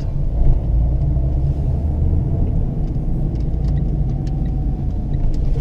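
Car cabin noise while driving: steady low engine and road rumble.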